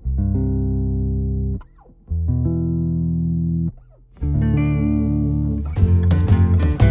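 Background music: held chords that stop and restart about every two seconds with short breaks between, then drums come in near the end and the music carries on fuller.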